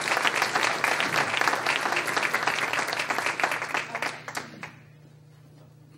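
Audience applauding, the clapping dying away about four and a half seconds in; a low steady hum remains underneath.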